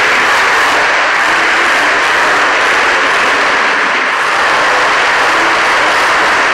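Monster truck engine running loud and steady inside an indoor arena, heard as a dense, unbroken engine noise.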